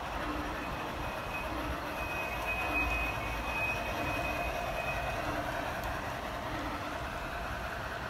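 G-scale model train, a small steam locomotive hauling log cars, running along garden track: a steady rolling rumble of wheels on rails with a soft regular pulse a little under twice a second. A thin high squeal sounds from about two to five seconds in.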